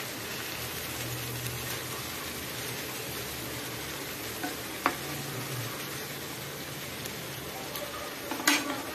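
Marinated chicken pieces sizzling steadily in a hot square pan while being turned, with a metal spatula clicking against the pan about five seconds in and again, louder, near the end.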